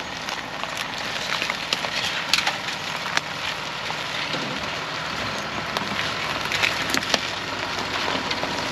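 A ute's tyres rolling slowly over fallen branches and dry sticks on a dirt track, the twigs snapping and crackling in many sharp cracks over the low noise of the vehicle creeping along.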